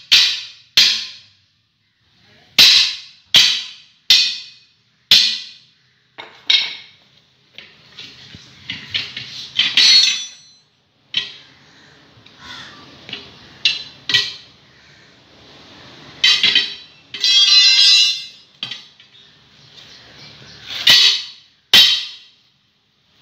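Steel tyre levers clanking against the steel wheel rim of an Isuzu NPR truck tyre as the tyre is pried off: about a dozen sharp, ringing metal strikes at irregular intervals, with one longer ringing, rattling stretch about seventeen seconds in.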